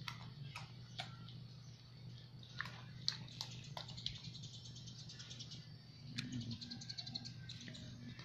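Newborn puppies suckling at their mother: irregular small wet clicks and smacks over a low steady hum.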